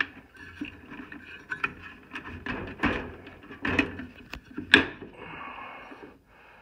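RV furnace combustion fan wheel being twisted and pulled by hand on its motor shaft: irregular clicks, knocks and scraping, with several sharper knocks between about three and five seconds in. The wheel is sticking on the shaft, which the repairman suspects is from the set screw biting.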